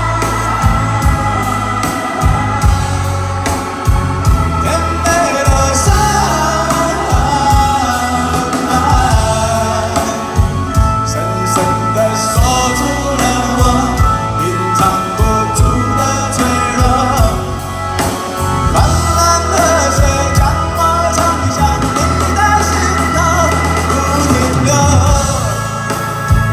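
Live rock band playing, with a male lead vocal over electric guitar, bass and a steady drum beat.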